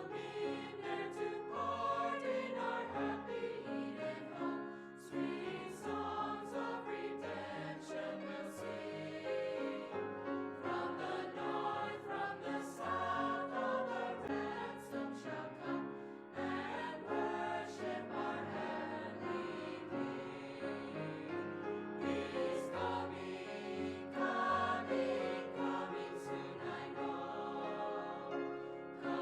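Music: a choir singing slow, sustained chords.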